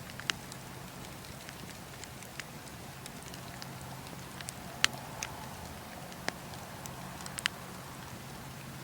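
Wood fire burning with a steady hiss and a low hum, and sharp crackles and pops every second or two. The loudest pop comes about five seconds in, and two come in quick succession near the end.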